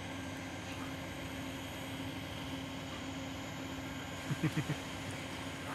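Steady low hum of an idling engine, heard from inside a car, with a quick run of four short low sounds about four and a half seconds in.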